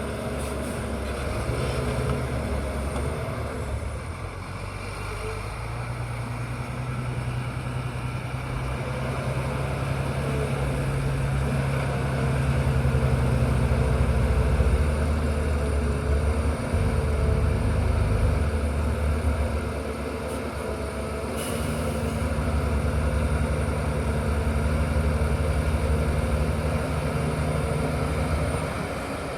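Bulldozer's diesel engine running steadily, growing louder in two long stretches, about midway and again near the end.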